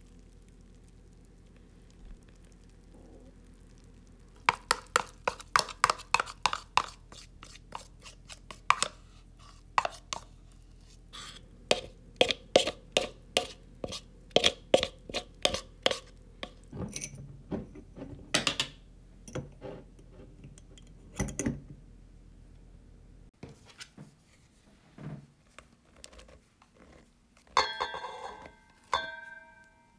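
Spoon clicking and scraping against a plastic bowl and glass jar as sticky sourdough starter (levain) is spooned out, a quick irregular run of taps lasting many seconds. Near the end, flour is poured into a stainless steel bowl with a short hiss.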